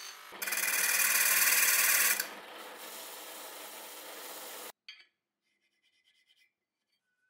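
Motor-driven wire wheel brushing metal parts: a loud, harsh scrubbing over a steady motor hum for about two seconds, then lighter steady brushing that cuts off suddenly about two-thirds of the way through. After that only a few faint light scrapes.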